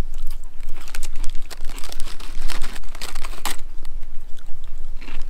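A crisp, paper-thin cinnamon wafer crunching as it is bitten and chewed, while a clear plastic snack bag crinkles in the hand. It makes an irregular crackling of many small clicks.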